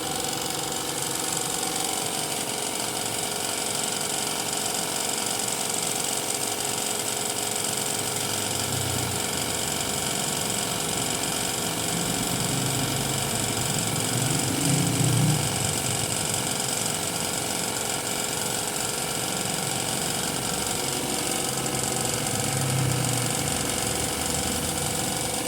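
Air compressor motor running steadily under a constant high hiss of air from a paint spray gun.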